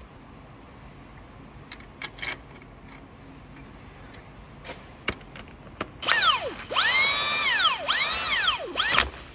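Cordless battery ratchet undoing engine bolts: a few light clicks as the socket goes on, then about six seconds in three runs of motor whirring, each rising and falling in pitch as the trigger is squeezed and let go.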